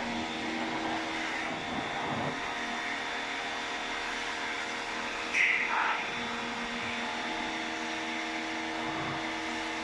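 A steady electric motor hum made of many held tones over a noisy hiss. A brief, louder, higher sound cuts in about five and a half seconds in.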